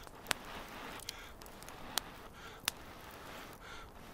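A wood fire crackling: a few sharp, separate pops over a low background, with soft puffs of breath as a smouldering ember is blown on to melt spruce resin.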